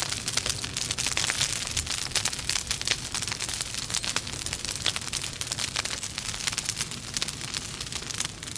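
Burning logs in a fireplace crackling, with dense irregular snaps and pops over a steady hiss.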